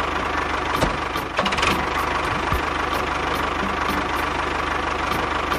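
Tractor engine idling steadily with a regular knocking beat.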